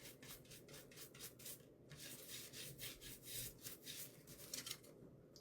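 A paintbrush scrubbing a thin, dry coat of paint onto a wooden shelf in quick repeated strokes, about four a second. This is dry-brushing to give the wood an aged, whitewashed look.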